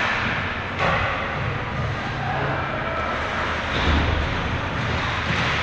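Ice hockey rink sounds during play: a steady noise of skates carving the ice over a low arena hum, with a sharper burst of scraping about a second in and another near four seconds.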